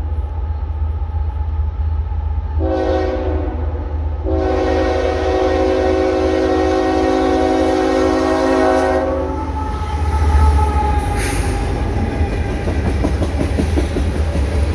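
Horn of a Canadian National GE ES44AC diesel locomotive sounding a short blast, then a long one held for about five seconds, the close of a grade-crossing signal, over the low rumble of the approaching diesels. As the horn stops the locomotives pass loudly, and then empty tank cars roll by with steady wheel noise and clicks.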